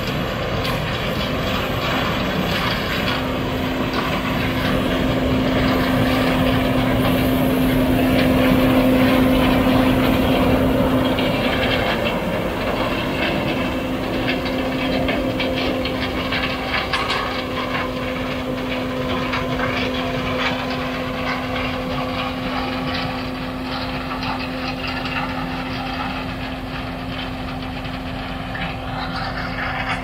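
Combine harvester running in the corn: a steady machinery hum with a held engine tone, swelling a little about eight to ten seconds in and then easing back.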